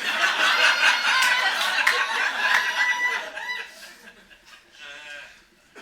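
Audience laughing loudly for about three and a half seconds, then dying away.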